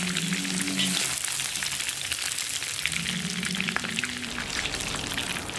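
Beef liver frying in hot oil in a cauldron: a steady dense sizzle full of small crackling pops.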